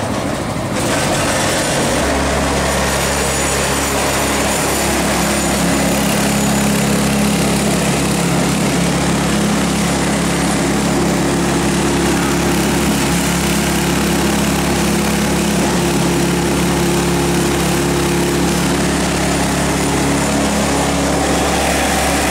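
Small gasoline engine on a sewer-jetting trailer running steadily at a constant speed. It comes in about a second in and holds an even pitch throughout.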